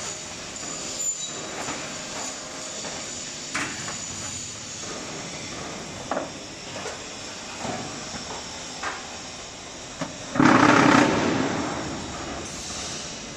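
QTJ4-25D concrete block machine at work: a steady mechanical noise with scattered short knocks and clanks. About ten seconds in comes a loud, harsh burst lasting roughly a second, which then dies away.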